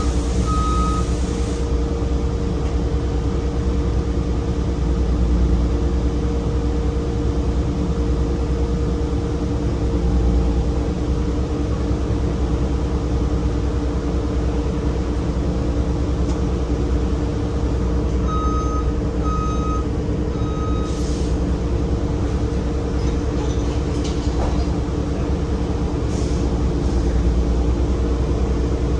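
Cummins Westport ISL G natural-gas engine of a 2008 Orion VII NG CNG transit bus running, heard from inside the cabin as a steady low drone with a constant hum. About two-thirds of the way in, three short high beeps sound.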